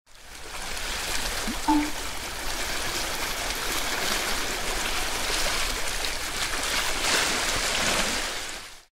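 Steady rushing water noise that fades in at the start and fades out near the end. A brief short chirp rises about one and a half seconds in.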